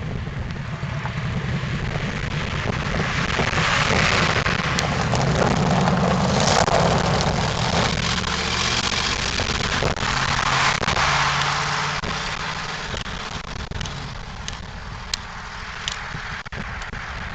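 A 1998 Ford Crown Victoria Police Interceptor's V8 with an exhaust leak driving past. The engine and exhaust grow louder to a peak about six seconds in, swell again around eleven seconds, then fade as the car moves away, with a few sharp ticks near the end.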